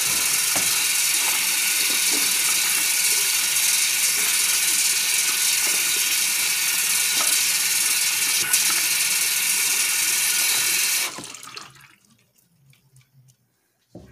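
Tap water running steadily into a sink while hands are washed, then the tap is turned off about eleven seconds in.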